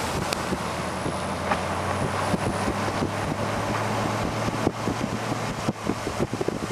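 A car on the move, with a steady low engine hum and road noise and wind on the microphone. Light clicks and knocks come more often in the second half.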